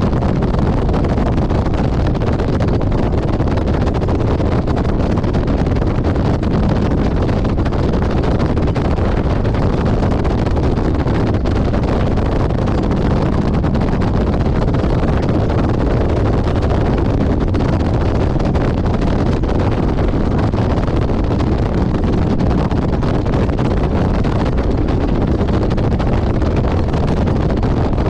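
Steady wind rush on the microphone of a motorcycle riding at highway speed, with the bike's engine and road noise underneath.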